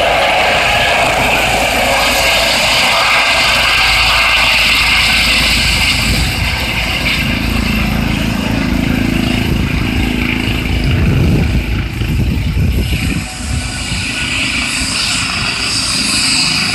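Medical helicopter landing on a grass field, its rotor and engine noise loud and steady. The higher rushing part of the noise eases after about ten seconds.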